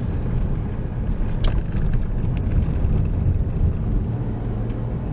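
Steady low rumble of a vehicle's engine and road noise heard while travelling, with a couple of brief sharp clicks about one and a half and two and a half seconds in.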